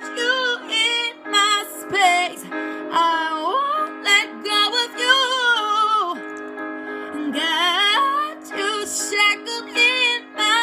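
A woman singing sliding vocal runs over a steady acoustic backing track of held chords, with a brief pause in the voice partway through.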